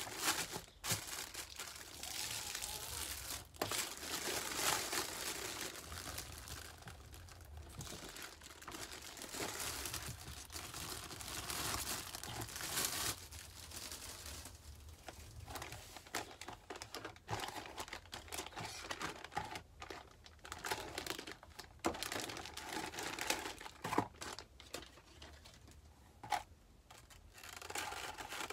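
Clear cellophane wrap crinkling and rustling as it is pulled off a magazine-and-parts package, with a few sharp crackles, then a plastic blister pack being handled.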